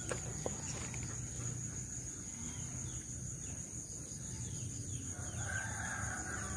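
A rooster crowing about five seconds in, over a steady high drone of insects.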